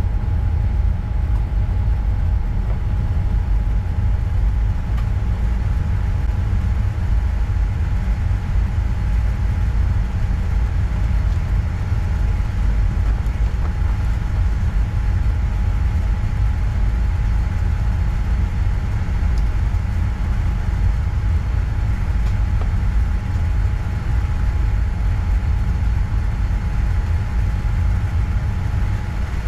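Loud, steady low rumble inside a moving vehicle, with a faint steady hum above it.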